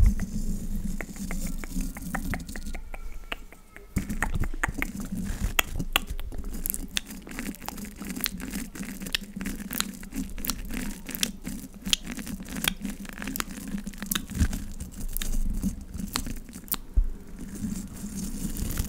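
The bristles of a small lash-and-brow brush are stroked and scratched quickly over the metal mesh grille of a Blue condenser microphone, giving a dense run of rapid, scratchy clicks.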